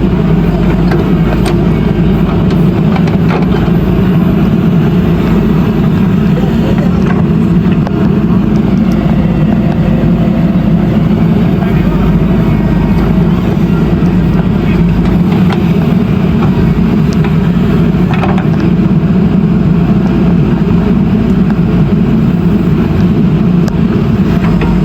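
JCB backhoe loader's diesel engine running steadily under work.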